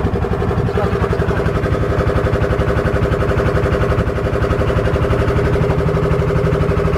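Small river boat's engine running steadily under way, with a rapid, even low pulsing and a steady hum.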